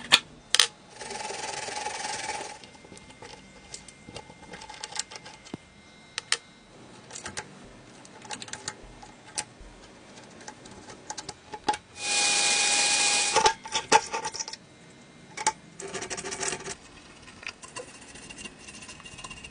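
Scattered clicks and light knocks of small objects being handled. Two steady noise bursts of about a second and a half each, one about a second in and a louder one about twelve seconds in, sound like a brief spray or a small tool running.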